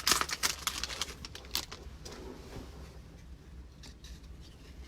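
Trading-card pack wrapper crinkling and cards being handled. A few sharp crackles come in the first second and a half, then faint rustling.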